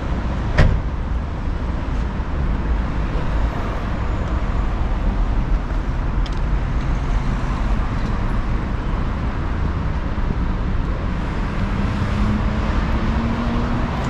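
Steady road traffic noise with a deep rumble, a sharp click about half a second in, and an engine note rising slowly in pitch near the end as a vehicle pulls away.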